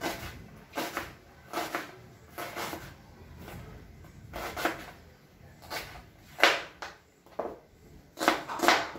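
Kitchen knife cutting a red onion on a wooden cutting board, each stroke a knock of the blade through the onion onto the board. The knocks come irregularly, about one a second at first, then quicker and louder in the last few seconds.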